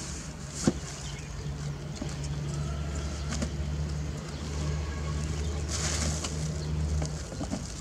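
A low, steady engine hum in the background, over the handling of a cardboard box and its plastic wrapping: a sharp knock under a second in and a brief plastic rustle about six seconds in.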